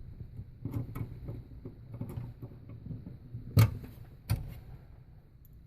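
Power supply being screwed back into a metal PC case with a Phillips screwdriver: scattered light clicks and knocks of screws and tool against the case, with two sharper knocks a little past the middle.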